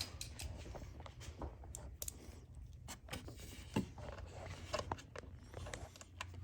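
Irregular light clicks and short scrapes of a small quarter-inch drive ratchet with a T25 bit, snugging screws into a plastic housing.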